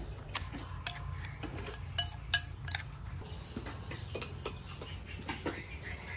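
Metal spoons clinking and scraping against ceramic plates and bowls in scattered light taps, with two sharper ringing clinks about two seconds in.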